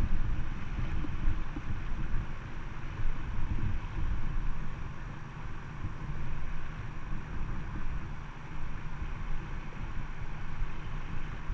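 Rushing water of a shallow river riffle with wind buffeting the microphone in an uneven low rumble.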